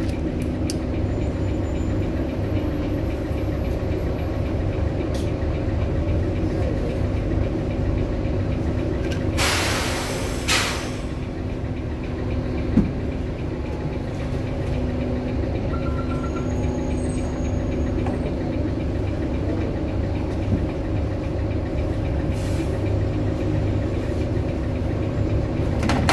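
Bus engine idling with a steady low hum, heard from inside at the front by the driver's cab. About ten seconds in there is a burst of air hiss lasting about a second and a half. A short electronic beep comes a few seconds later.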